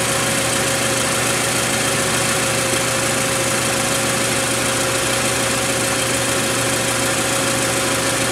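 Toyota Matrix engine idling steadily after a fresh oil change, heard from underneath the car beside the oil filter.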